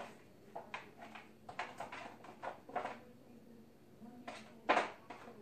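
Frozen pie crust being snapped into pieces and its foil pie pan handled: a string of short, irregular cracks and crinkles, the loudest one near the end.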